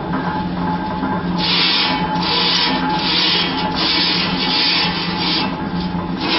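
Rhythmic scraping strokes, roughly every three-quarters of a second, starting about a second and a half in, over a steady low hum.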